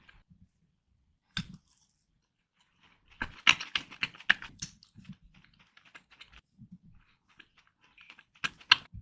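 Close-miked mouth sounds of eating sweets: chewing with crisp clicks and crackles, densest from about three to five seconds in, with two sharp clicks near the end.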